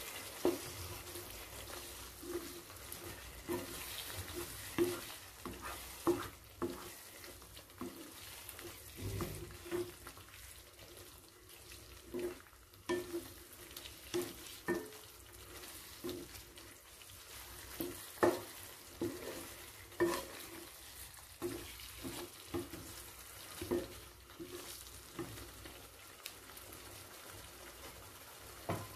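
Spatula stirring chicken and yogurt masala in a nonstick kadai: irregular scrapes and light knocks against the pan, about one or two a second, over a faint sizzle of the curry cooking.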